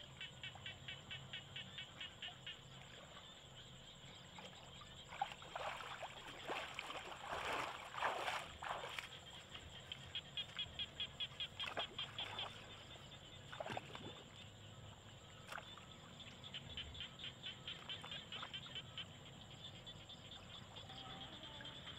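Frogs calling in runs of rapid even pulses, about four a second, each run lasting a few seconds, over a faint outdoor background. Water splashing and sloshing as someone wades through shallow water, loudest from about five to nine seconds in.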